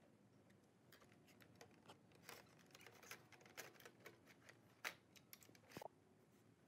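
Faint clicks and light knocks of circuit boards and a sheet-metal chassis panel being handled and fitted together, with one sharper click about five seconds in.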